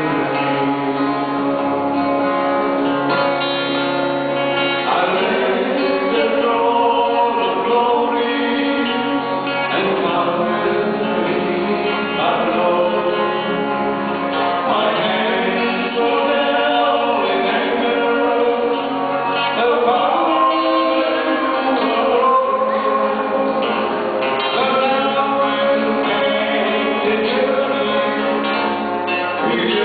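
Two male voices singing a gospel duet with guitar accompaniment, amplified through a church PA.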